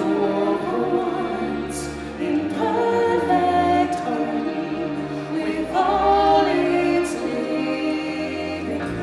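Choir-style vocalists singing long held notes with vibrato over sustained backing music.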